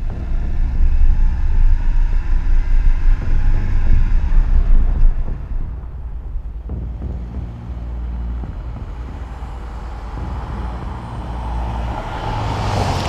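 Heavy low road and wind rumble from a moving car, heard from a camera mounted low beside its front wheel. About five seconds in it gives way to quieter street noise, and near the end a passing car grows louder as it approaches.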